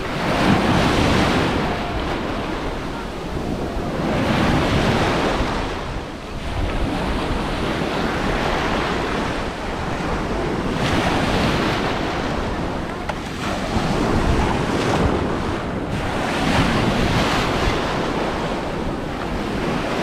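Ocean surf breaking and washing around close by, in surges every few seconds.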